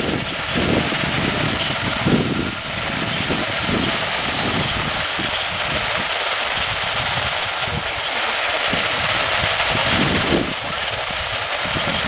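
Hiss and static of a weak AM radio signal received at long range, with irregular low rumbles rising and fading underneath and no clear voice coming through.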